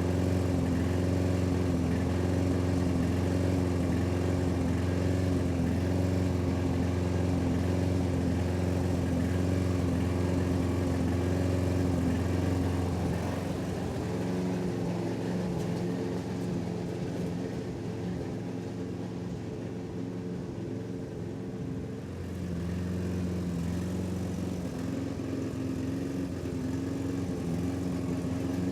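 Toro lawnmower engine running steadily while cutting grass, with a slight regular waver in its pitch. It grows quieter for several seconds midway, then comes back up.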